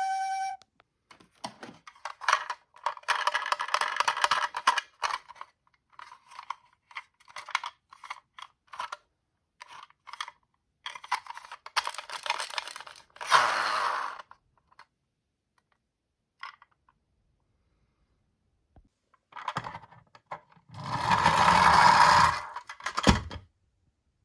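Dry crinkling, scraping and tearing in short irregular bursts, typical of a small cardboard toy box and its packaging being opened by hand to take out a minicar, with a longer, louder rustle about 21 seconds in.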